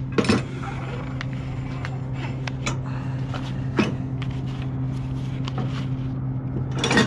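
Truck engine idling with a steady hum while a nylon cargo strap is handled, giving a few scattered ticks and rustles. The flatbed's strap winch ratchets briefly at the start and again right at the end, its pawl clicking rapidly.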